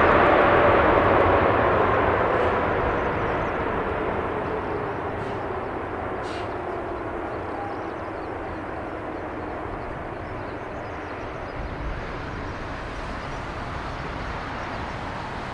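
Boeing 747-8F's four GEnx turbofan engines spooling down on the landing rollout. A loud jet rumble with a whine that falls in pitch and fades over the first few seconds, settling into a steady, lower rumble.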